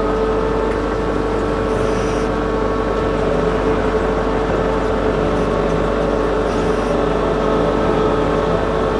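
Kato compact track loader's diesel engine running steadily with a constant droning tone, under load as the machine pushes a bucketful of dirt and slate.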